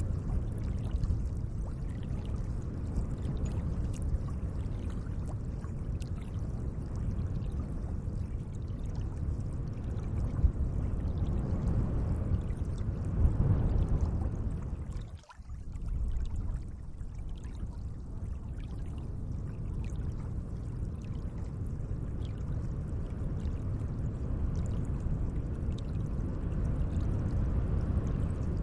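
Gentle lake water, a steady watery wash that drops out for a moment about halfway through.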